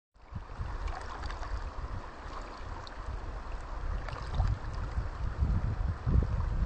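Piave River current rippling over its shallow pebble bed, a steady rushing hiss with small splashes. Wind buffets the microphone with an uneven low rumble, in gusts that grow stronger near the end.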